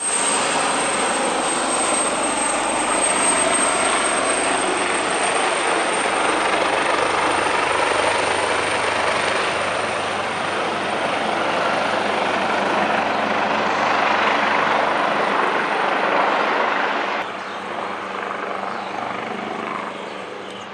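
Large helicopter flying low overhead: steady, loud rotor and engine noise with a thin, high turbine whine running over it. The noise eases somewhat about seventeen seconds in.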